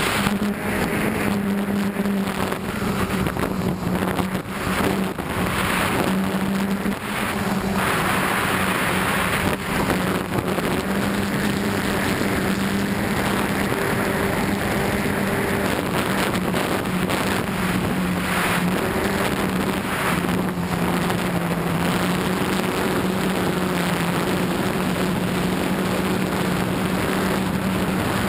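Electric motors and propellers of a DJI F550 hexacopter running in flight, heard from a camera on its frame: a steady hum whose pitch wavers slightly, under a rush of wind on the microphone.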